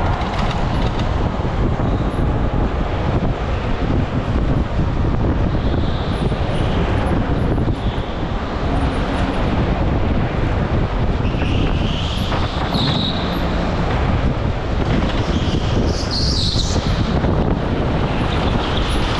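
Go-kart driving at racing speed, heard from on board: a steady, dense running rumble of the kart and its tyres on the track. Higher-pitched sounds rise briefly about twelve and sixteen seconds in.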